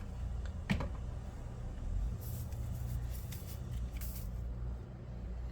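Quiet handling sounds from seasoning chicken: one sharp tap under a second in, then two brief soft rustles like spice being shaken from a container, over a low steady hum.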